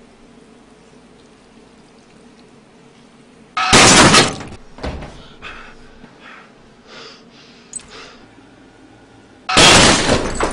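Two loud, sudden bursts of noise about six seconds apart, each lasting under a second, with a few small knocks and clicks between them.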